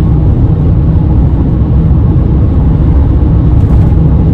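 Steady low rumble of road and engine noise inside the cabin of a 2021 VW T6.1 Transporter camper van on the move, its diesel engine running under the tyre roar.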